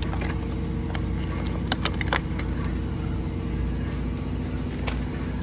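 A steady low mechanical hum, like a running motor, with a few sharp clicks about two seconds in and another near the end.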